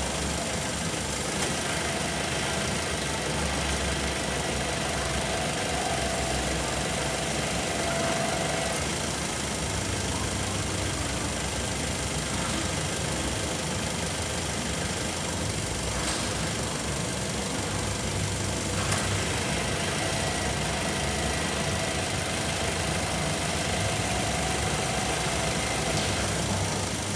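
Mazda 3's 2.3-litre four-cylinder petrol engine idling steadily, heard from the open engine bay.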